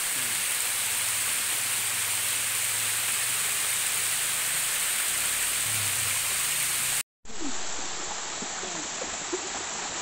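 Steady rush of a waterfall splashing onto rocks, loud and close. About seven seconds in the sound breaks off for a moment and comes back somewhat quieter.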